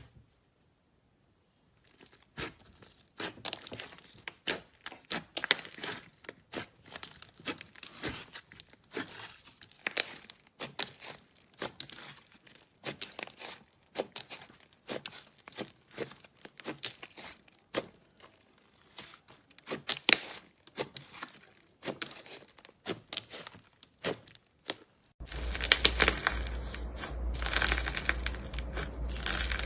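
Slime being squeezed and stretched by hand, giving a close stream of sticky clicks, pops and crackles. About 25 s in, it turns into a denser, continuous crackling over a low hum.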